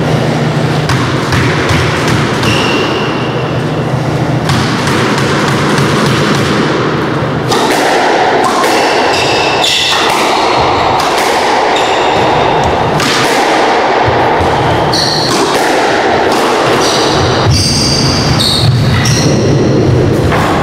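A squash rally: the ball cracking off racquets and thudding against the court walls in repeated sharp hits, with short squeaks from players' shoes on the wooden floor.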